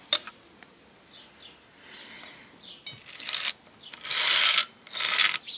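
Lead balls rattling as they roll out of a speed loader into the tubular side magazine of a 1780 Girandoni repeating air rifle: a light click at the start, then three runs of clinking rattle, the loudest about four seconds in.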